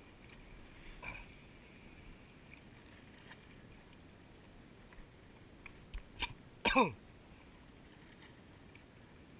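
Quiet background with a few faint clicks, then, about seven seconds in, a person gives one short vocal sound that drops sharply in pitch.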